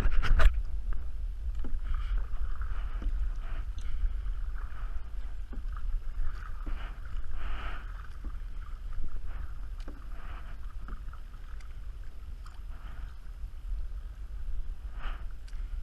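A kayak on the water: soft irregular splashes and lapping, with a steady low wind rumble on the microphone and a sharp knock at the very start.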